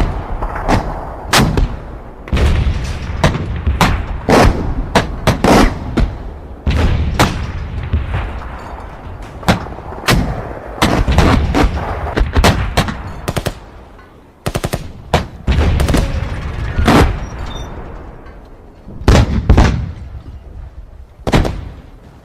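War-battle sound effect of gunfire: irregular single shots and short rapid bursts over a low rumble, thinning to a few isolated loud shots near the end.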